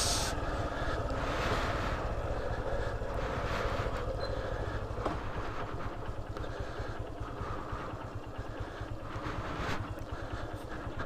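Motorcycle engine running at low speed, a steady pulsing rumble, as the bike is ridden over a rough, rutted dirt track.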